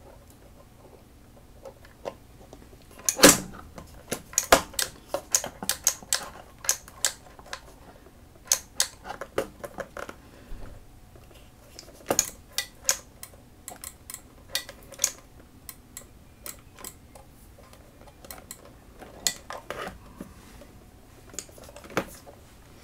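Irregular small clicks, taps and knocks of guitar pedals and their DC barrel power plugs being handled, pushed in and pulled out on a pedalboard, starting about three seconds in and coming in quick clusters.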